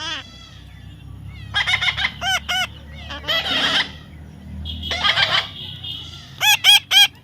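Parrot calling: harsh squawks mixed with short, arching pitched calls, with three quick calls in a row near the end.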